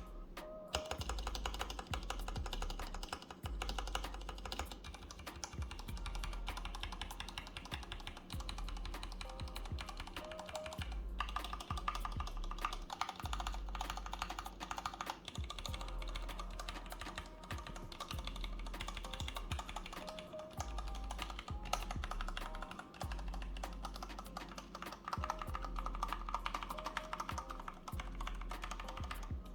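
Typing on a mechanical keyboard with Cherry MX Brown switches: a quick, continuous run of key clicks, over a hip-hop beat with a steady, repeating bass.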